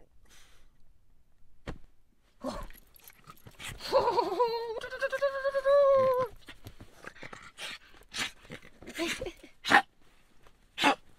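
Dog vocalizing during rough play, with grunts and one long call about four seconds in that wavers and then holds for about two seconds. A few sharp clicks and bedding rustle come with it.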